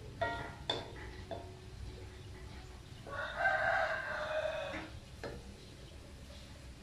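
A rooster crowing once, a long call starting about three seconds in and lasting nearly two seconds. Before and after it come a few knocks of a wooden spatula against a wok.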